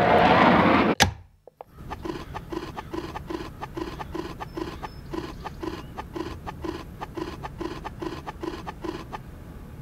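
Rhythmic back-and-forth rasping strokes of a hand tool, about three a second, like a small saw or file at work. They follow a loud rushing burst that ends in a sharp click about a second in.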